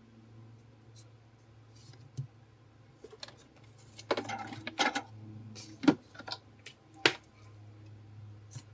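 Small metal repair tools clicking and clinking against a hard work surface: scattered light clicks, a run of clattering in the middle, then two sharper knocks.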